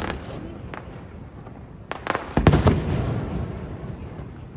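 Aerial firework shells bursting: a couple of sharp cracks in the first second, then a cluster of loud bangs about two seconds in, followed by a long fading rumble.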